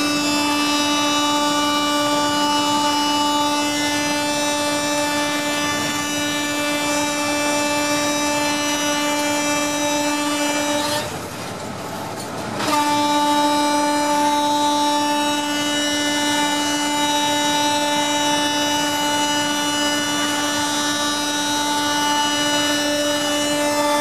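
Indian Railways WAP-4 electric locomotive's horn sounding in two long, steady blasts: the first lasts about eleven seconds, a brief gap follows, and the second starts about thirteen seconds in and is still going at the end.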